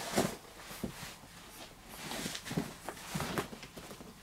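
A backpack being swung onto the shoulders: irregular rustling of the bag and clothing, with a few soft knocks and footsteps.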